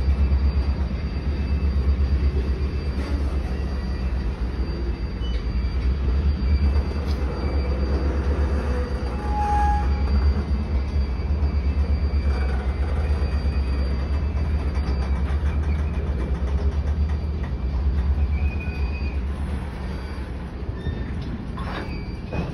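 Freight cars of a TRRA freight train rolling slowly past: a steady low rumble of wheels on rail, with a thin high steady tone through roughly the first two-thirds. The sound grows quieter over the last few seconds as the train slows.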